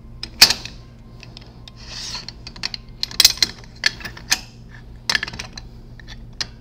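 Stainless steel casing clamp of an SPX Flow C114 centrifugal pump being fitted and tightened by hand: a run of sharp metal clicks and clinks, the loudest about half a second in, with a short scrape near the middle.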